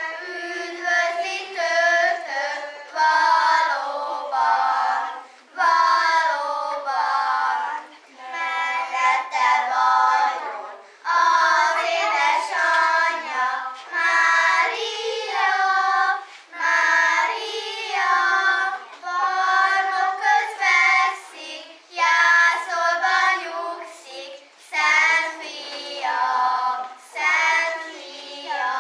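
A small group of young children singing a song together in phrases of a second or two, with short breaks between them.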